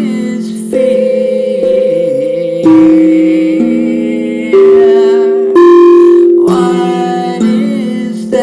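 Steel tongue drum played with two mallets: single notes struck about once a second, each ringing long and overlapping the next, forming a slow melody.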